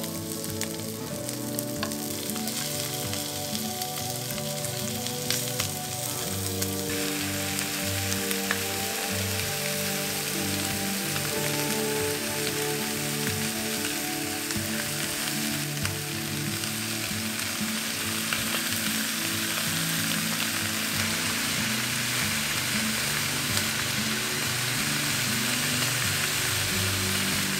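Food sizzling in oil in a frying pan as lemongrass and garlic are stir-fried with chopsticks; about seven seconds in the sizzle turns much louder and hissier as chicken drumsticks fry, continuing steadily. Soft background music plays underneath.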